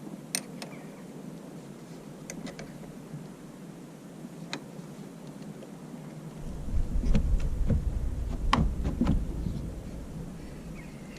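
Scattered light clicks and taps of small parts and tools being handled around a car battery, with a low rumble on the microphone starting about halfway through, under a busier run of clicks.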